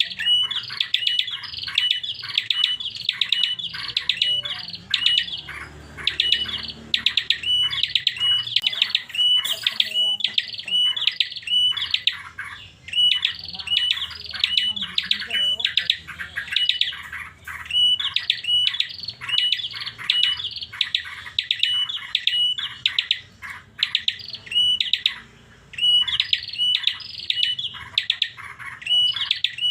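Prinia (prenjak) singing an unusual song: long runs of rapid, repeated high chirps, several a second, broken by a few short pauses.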